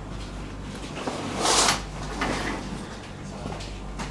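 Steady low hum of an electric commuter train, heard inside the carriage, with a short, loud hiss about a second and a half in.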